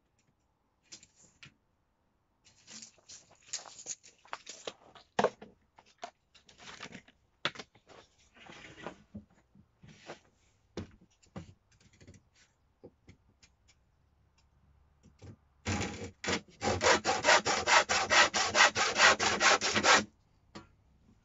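Handsaw cutting across a wooden batten: light, scattered scraping strokes as the cut is started, then a steady run of fast back-and-forth strokes for about four seconds near the end, stopping when the batten is cut through.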